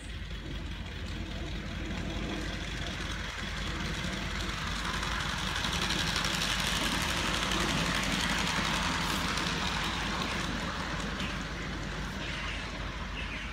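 LBSC 3½-inch gauge Britannia live-steam model locomotive and riding truck running past on a raised track, with steam exhaust and wheels on rail. The sound builds as it approaches, is loudest about halfway through, then fades as it draws away.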